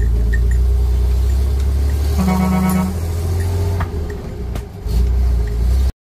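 Vehicle engine running with a steady low rumble, and a single horn toot lasting under a second about two seconds in.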